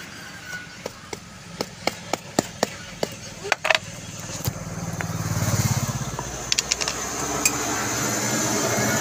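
A string of sharp taps and clicks through the first few seconds and again later. Between them a motor vehicle passes, its engine swelling and fading about five to six seconds in, over a steady background hum.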